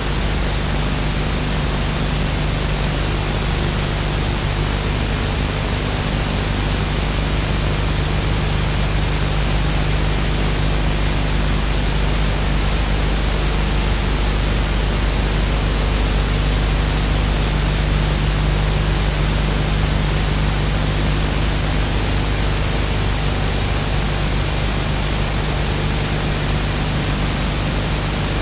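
Steady hiss with a low, constant hum, unchanging throughout: the noise of a VHS tape's silent audio track during playback.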